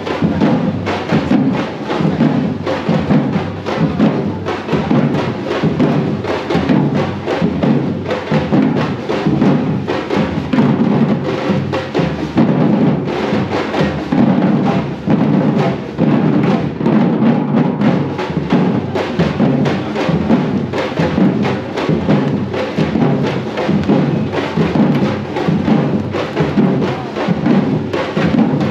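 Loud music driven by drums and percussion, with a steady beat.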